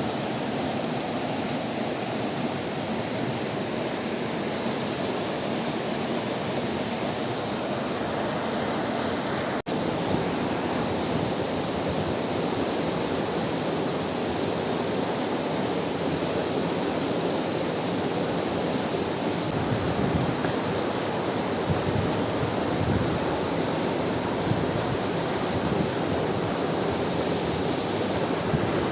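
Steady rush of river water flowing over stones, an even hiss with no breaks except a momentary cut-out about ten seconds in.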